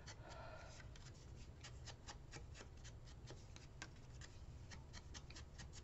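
Faint, quick dabs and rubs of a foam ink blending tool on the edge of a paper strip as ink is smudged along it: an irregular string of soft taps, several a second.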